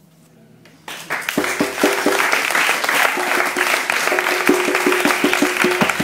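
Audience applause breaking out about a second in, while a plucked string instrument plays quick repeated notes.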